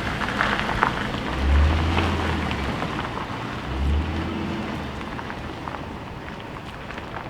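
Ford Crown Victoria Police Interceptor's 4.6-litre V8 running as the car pulls away on its first drive after the rebuild, with two low surges of engine sound about one and a half and four seconds in. The sound grows fainter as the car moves off.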